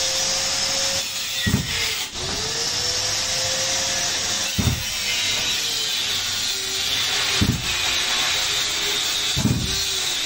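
A 400cc two-stroke engine kick-started four times, each kick a short low thud a few seconds apart, without the engine catching. A steady whining hiss runs underneath.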